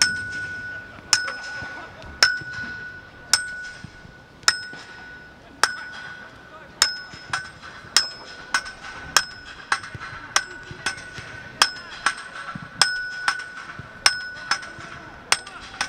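Metal being struck over and over, each strike ringing on like a struck bar. The strikes come about once a second, then speed up to about two a second about halfway through.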